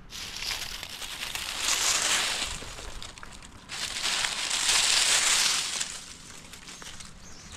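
Rustling, crinkling noise in two swells, one starting about a second and a half in and a longer, louder one from about four to six seconds in.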